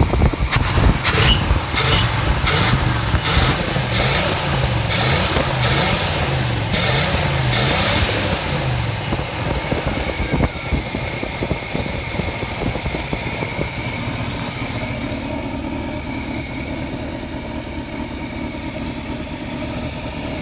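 Chevrolet 350 V8 of a 1984 Caprice station wagon revved in several quick blips over the first eight seconds, then settling to a steady idle. The exhaust is loud through bad mufflers.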